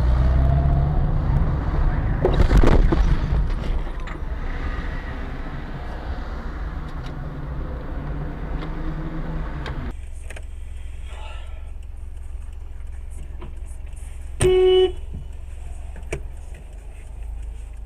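Road and engine rumble heard from inside a moving car, with a loud bang about two and a half seconds in. About three-quarters of the way through, a car horn gives one short toot.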